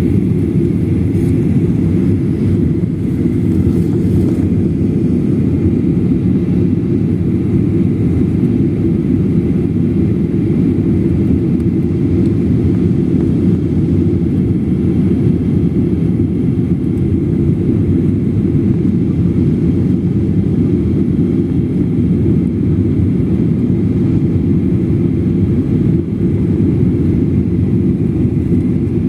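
Steady low rumble inside the passenger cabin of a Boeing 737-800 on approach: airflow over the fuselage mixed with its CFM56 turbofan engines. The rumble stays even throughout, with no change in pitch or level.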